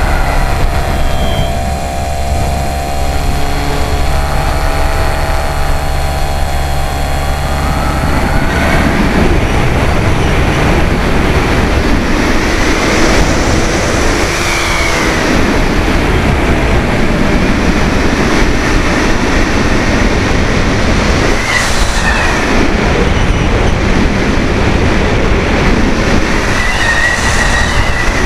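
Radio-controlled model plane's motor and propeller, heard from a camera on board. For about the first eight seconds it is a steady whine with several tones over rushing wind. After that the wind noise takes over, with a few brief rising and falling whines as the throttle changes.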